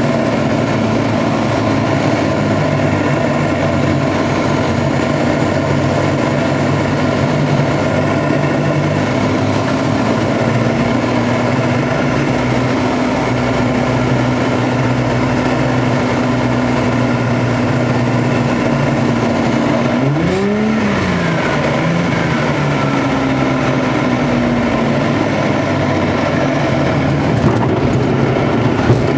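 Van's RV-7 light aircraft's piston engine and propeller drone steadily in the cockpit on landing approach, with wind hiss. About two-thirds through, the engine pitch briefly swoops up and back down. Near the end there are a couple of short knocks as the aircraft reaches the runway.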